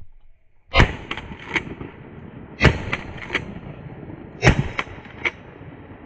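Three shotgun shots about two seconds apart, each followed by echoes.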